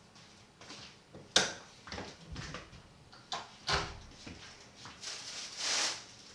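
Household handling sounds: a sharp knock a little over a second in, a few softer knocks and clatters, and a longer rustling swish near the end.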